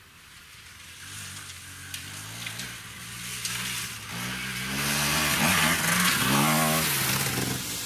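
Enduro dirt bike approaching along a trail, its engine getting steadily louder as it nears. It then revs up and down repeatedly as it rides close past.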